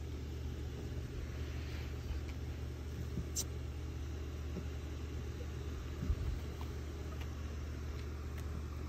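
A steady low hum, engine-like, runs throughout. A sharp click comes about three and a half seconds in, and faint knocks follow about six seconds in.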